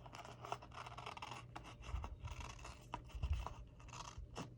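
Faint paper-crafting sounds: paper pieces being handled and rubbed on the work surface, with scattered small clicks and scratches.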